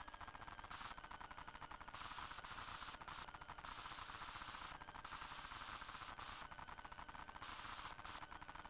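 Faint static on a police dash-camera's audio track: rapid crackling clicks with stretches of hiss that cut in and out, over a faint steady high whine.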